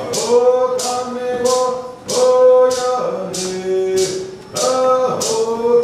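Cherokee social dance song: a voice singing long held notes, some sliding down, over a rattle shaken on a steady beat about one and a half times a second.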